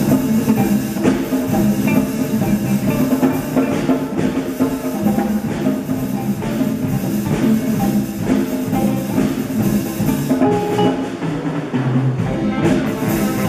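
A school jazz big band playing: saxophones and brass over electric guitar, bass and a drum kit keeping a steady beat.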